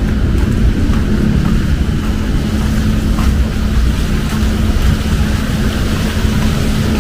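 Rainy street ambience: a steady low rumble of road traffic with a held engine hum, over an even hiss of falling rain.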